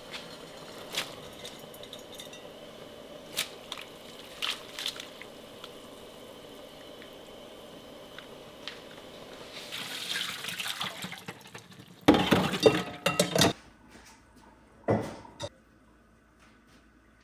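Water boiling in a stainless pan on a gas stove, with a few sharp clicks of metal tongs against the pan, and a louder stretch of swishing as noodles are stirred in the water. About twelve seconds in comes a loud run of clattering knocks of kitchenware, then one more clatter a couple of seconds later.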